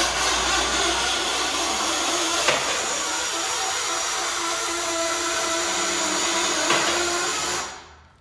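Twin Busch two-post car lift running under a heavy load of about 2.3 tonnes: the electro-hydraulic pump motor runs steadily with squealing from the lift's moving parts, then cuts off near the end. The squeal persists although the owner has already greased all the bushings, and he does not know its cause.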